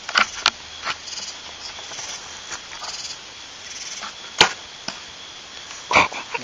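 A bow shot: a sharp, loud snap about four and a half seconds in, with another loud knock about a second and a half later, among smaller clicks and rustles.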